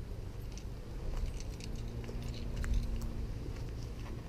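Footsteps and light rustling through grass and ground cover, with a low rumble on the microphone and scattered faint clicks. About a second and a half in, a faint steady buzz, a honeybee flying past, lasts under two seconds.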